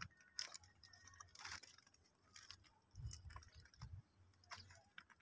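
Faint, irregular crunching footsteps on track ballast gravel, with scattered small clicks and a few soft low thumps around the middle.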